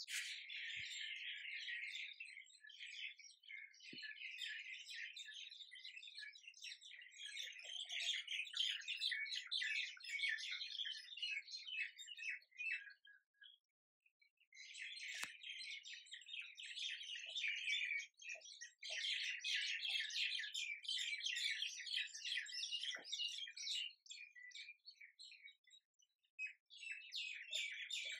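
A chorus of small birds chirping and twittering rapidly and continuously, breaking off briefly about halfway through and again near the end, with a few faint knocks underneath.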